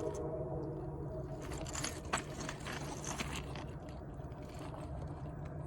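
Distant diesel freight locomotives approaching, heard as a steady low engine drone, with a cluster of crunching, scraping clicks through the middle.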